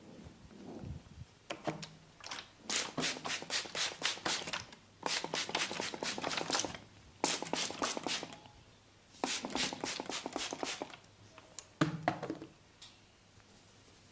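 Rapid tapping on a person's forehead during a head massage, in four bursts of one to two seconds at about four or five taps a second, with one louder sharp hit near the end.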